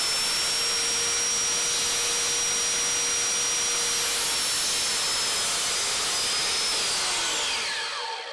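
Mitre saw running at full speed with a steady high whine while its blade cuts a thin 7-degree wedge off the end of a Tasmanian oak board. Near the end the motor is switched off and winds down, its whine falling in pitch.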